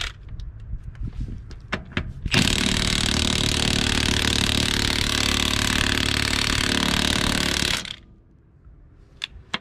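Cordless impact wrench hammering on a rusty wheel lug nut for about five seconds, starting sharply after a few light clicks and stopping abruptly near the end. The nut is left-hand thread, so the wrench is driving it tighter rather than loosening it.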